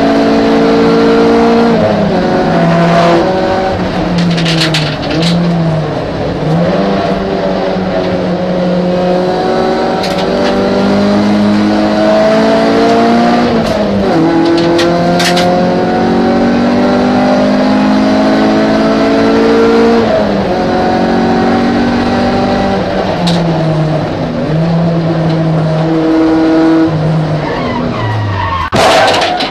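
Race car engine heard from inside the cabin, running hard and climbing and dropping in pitch as it shifts through the gears and slows for corners, with a few brief sharp clicks. About a second before the end a loud sudden burst of noise breaks in as the car crashes.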